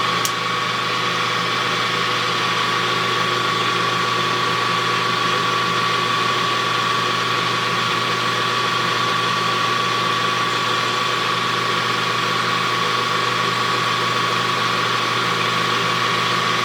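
Metal lathe running steadily with a high whine from its motor and gearing, facing off the end of a small workpiece. A brief click sounds just after the start.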